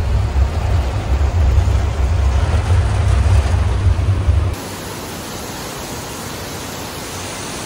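Heavy downpour heard from inside a moving van, a loud rushing hiss of rain on the vehicle with a deep rumble underneath. About four and a half seconds in it cuts to a steady hiss of heavy rain falling in the open.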